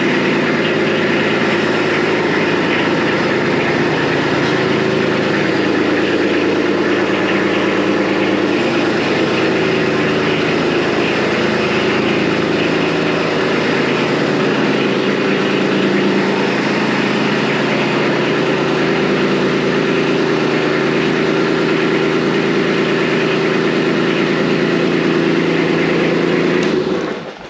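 Kubota B2601 tractor's three-cylinder diesel engine, brand new and running for the first time, idling steadily, then shut off near the end.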